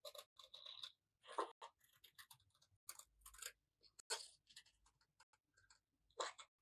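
Scissors snipping through sheet of coloured craft paper: a faint run of short, irregular crisp cuts.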